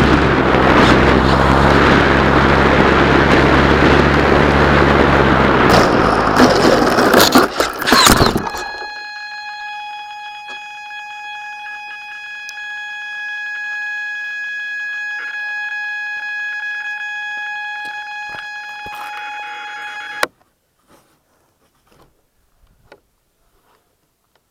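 Wind on the microphone and a model aircraft's motor running, then a quick run of knocks and bumps about six to eight seconds in, consistent with the hard landing after the front wheel came off its control rod. A steady high-pitched electronic tone then sounds for about twelve seconds and cuts off abruptly, leaving a few faint clicks.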